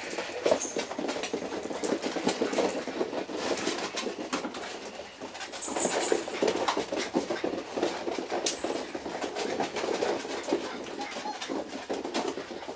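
A litter of five-week-old puppies playing and scrabbling on a vinyl floor: a dense patter of small clicks and taps from claws and toys, with a couple of brief high squeaks.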